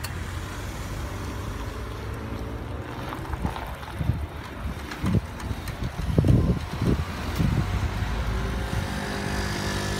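Road traffic crossing a railway level crossing: cars drive slowly over the tracks, with a few low rumbling thumps in the middle, loudest about six seconds in. Near the end a scooter's small engine runs steadily nearby.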